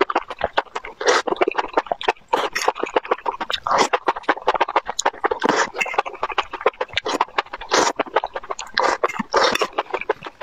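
Close-miked eating sounds: wet slurping of long saucy enoki mushroom strands, mixed with chewing and lip smacking in a dense, irregular run of clicks and sucking noises.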